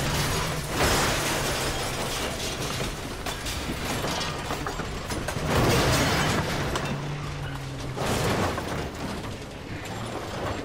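Movie crash sound of a sedan rolling over and dropping back onto its wheels: a continuous clatter of crumpling, scraping car body, with heavier crashes about a second in and again around six and eight seconds.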